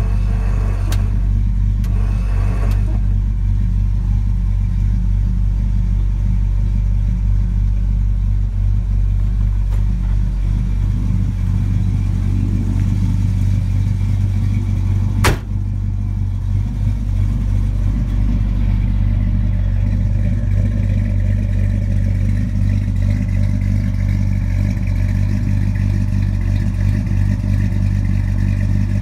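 The GM 350 small-block V8 of a 1948 Ford F1 restomod pickup idling steadily through its dual exhaust. A single sharp knock comes about halfway through.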